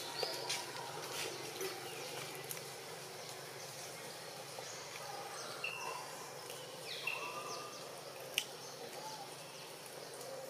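Outdoor ambience: a steady faint hiss with scattered small clicks, a few short high chirps in the middle and a single sharp click near the end.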